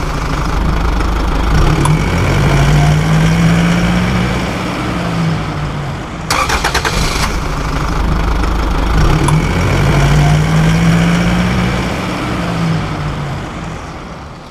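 Car engine sound effect: a short starter crank, then the engine catching and running with a rise and fall in pitch. The same effect plays again about six seconds in and fades out near the end.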